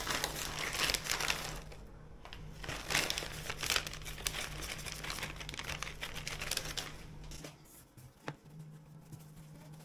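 Plastic cheese packaging crinkling and rustling as it is handled and torn open, in irregular bursts for about seven seconds, then quieter with a single click.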